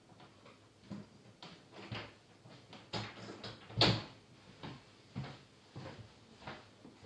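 A run of separate knocks and clunks, about ten over several seconds, the loudest a little past halfway.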